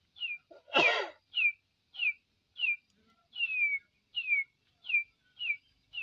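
A man whistling an imitation of a bird call: a run of short whistled notes, each falling in pitch, just under two a second. One louder, harsher call comes about a second in.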